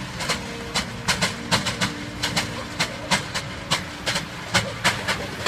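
Repeated sharp knocks, irregularly spaced at about two or three a second, over a steady low hum.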